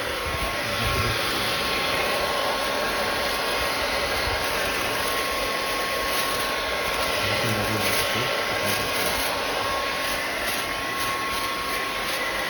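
Ikonic Ultra Light 2000 W hair dryer running steadily on its first speed setting: an even rush of blown air with a thin steady whine from the fan motor.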